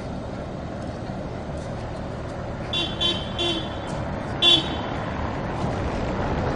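A tram's warning horn beeping four short, high-pitched times, the last the loudest, at a dog standing on the tracks in front of it, over steady low street noise.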